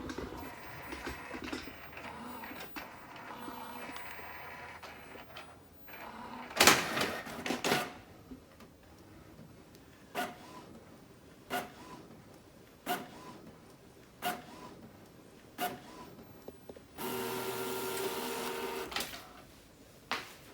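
Canon Pro9500 Mark II inkjet printer running a nozzle check print to test a clogged print head. Its motors whirr steadily, with a loud clatter about six and a half seconds in. Then come regular clicks about every second and a half, and another steady whirr near the end.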